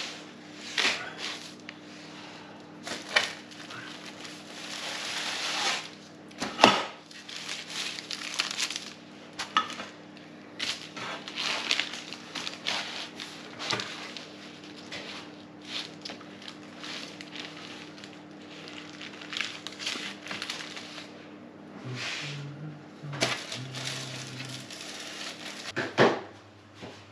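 Irregular rustling, scraping and light knocks as cut slices of stollen are lifted and slid across baking paper and a metal baking tray with a knife. A steady low hum runs underneath.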